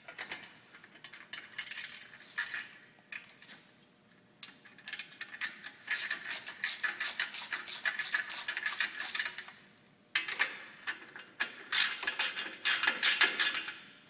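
Socket ratchet wrench clicking in long runs of rapid ticks as the exhaust head-port nuts are backed off, with short pauses about four and ten seconds in.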